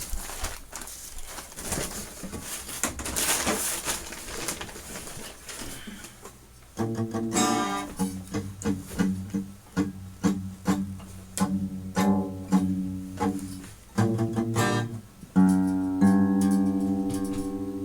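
Guitar: about six seconds of scratchy, unpitched scraping and clicks on the strings, then chords struck in short, quick repeated strums, and near the end a chord left to ring and fade.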